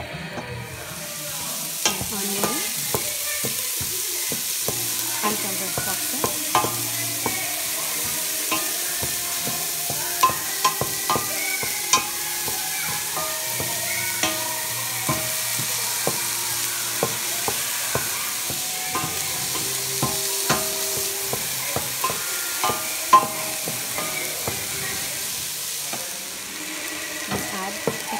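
Chopped garlic and onion sizzling in hot olive oil in a stainless steel pot, starting about half a second in, while a wooden spoon stirs, with scattered clicks and scrapes of the spoon against the pot.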